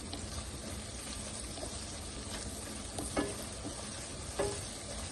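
Chopped onion and whole spices sizzling in hot oil in a kadai as they are stirred, with a few light knocks against the pan.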